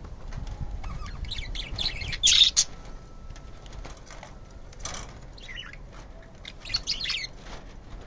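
Several budgerigars chirping in short, scattered bursts, loudest about two seconds in.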